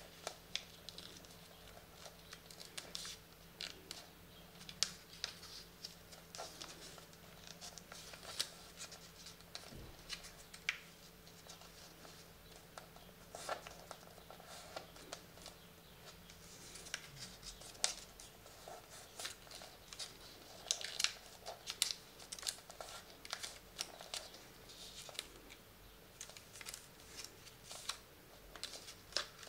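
A sheet of paper being folded and creased by hand, with irregular rustling, crinkling and sharp little clicks as the folds are pressed flat.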